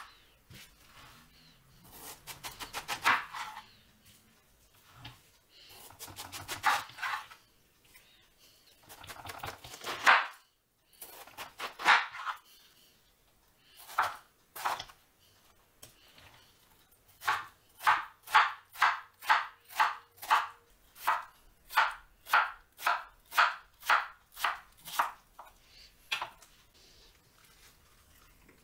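A kitchen knife cutting through peeled watermelon flesh on a wooden cutting board: several separate slow slicing cuts, each a crisp crunching lasting a second or two, then past halfway a steady run of short chopping strokes, about two a second, as the flesh is cut into sticks.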